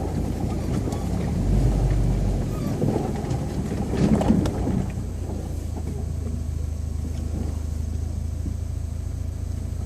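UAZ Patriot's engine working off-road, surging loudly twice in the first half, then settling to a steadier, lower run.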